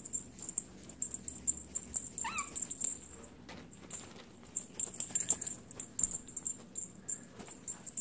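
A tabby cat playing with a toy: soft rustling and small clicks, and one short rising-and-falling chirp about two seconds in.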